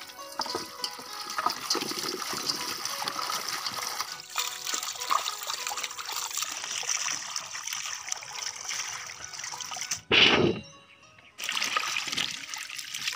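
A stream of spring water pouring and splashing into a steel basin of sliced green papaya as hands rub and rinse the pieces. A short, louder burst of sound comes about ten seconds in, then a brief lull before the running water resumes.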